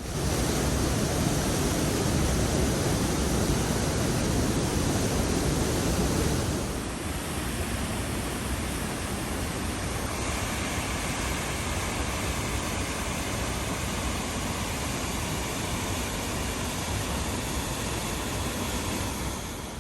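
Steady rush of water from a canyon waterfall and creek, an even noise without pitch. It is loudest for about the first six seconds, then drops a little and sounds thinner as the shot changes.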